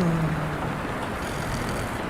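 A short low snore, sliding slightly down in pitch, about the first second, over the steady hiss of falling rain.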